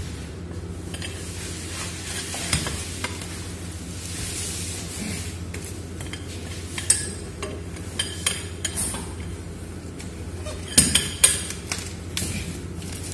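Steel wrench clinking and clicking against the flange bolts of a strainer cover as they are tightened, with scattered sharp metallic clicks, the loudest a close pair near the end. A steady low hum runs underneath.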